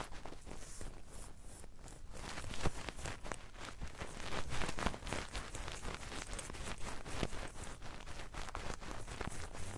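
Close-miked ASMR trigger sounds: a dense, irregular run of small taps and crackles, several a second.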